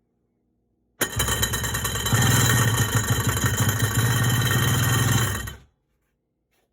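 1994 Sea-Doo GTX two-stroke engine idling out of the water with a loud rattle. The sound starts abruptly about a second in and cuts off sharply after about four and a half seconds. The rattle came on together with a loss of forward thrust, and the owner suspects it comes from the propeller.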